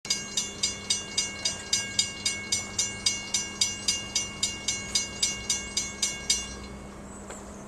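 Railroad grade crossing signal bell ringing rapidly, about three and a half strikes a second, then stopping about six seconds in, leaving a quiet steady low hum.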